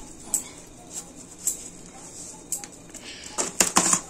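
Scattered light clicks and taps of a spoon against steel kitchen dishes as salt is spooned over mashed boiled potato, ending in a quick flurry of louder taps and rustling near the end.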